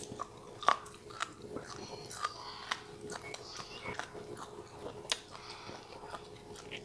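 Close-miked chewing of stir-fried chicken gizzards and vegetables: a run of sharp, wet mouth clicks and crunches, the loudest about two-thirds of a second in, over a faint steady hum.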